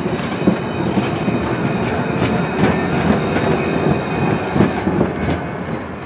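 A train passing slowly: a rumbling roll of wheels on rail with irregular sharp clicks as the wheels cross rail joints. It swells up, holds, and fades away near the end.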